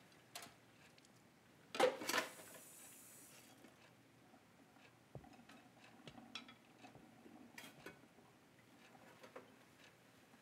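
Quiet clinks and clatters of dishes being handled at a kitchen sink, with one louder clatter about two seconds in followed by a brief hiss, then scattered light clicks.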